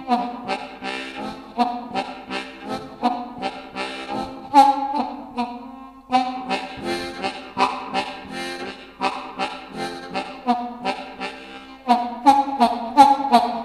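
Low F diatonic harmonica played solo in a rhythmic, pulsing chug imitating a steam train. Near the end the chugging gets louder and faster.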